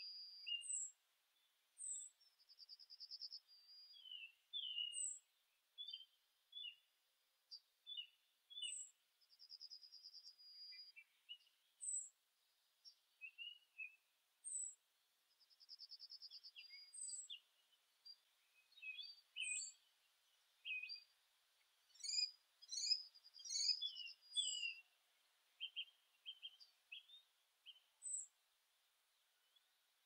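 Several small songbirds singing and chirping. A thin, high, down-slurred note repeats every second or two, over rapid trills about a second long and scattered short chirps.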